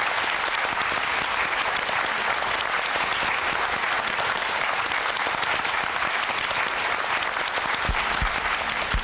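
Studio audience applauding steadily, a dense wash of many hands clapping. A few low thuds come in near the end.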